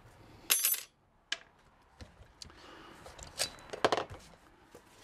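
Saw blade and plastic reciprocating-saw body being handled: a sharp metallic clatter with brief ringing about half a second in, then a few scattered clicks and knocks.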